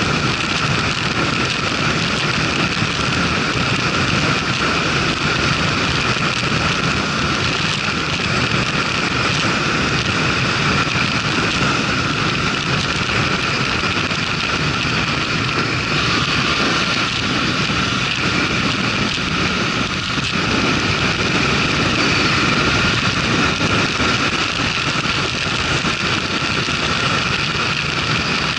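Motorcycle riding at road speed: steady wind rush over the microphone mixed with the engine and tyre noise.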